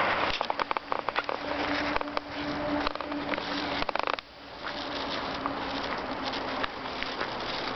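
Footsteps crunching on packed snow, a quick run of crackles in the first couple of seconds, over steady street noise. A low steady buzzing hum sets in about a second in and fades after the middle.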